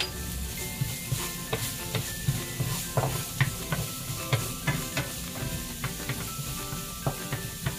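Minced garlic sizzling in a nonstick frying pan as it is sautéed, with a wooden spatula scraping and tapping against the pan several times a second.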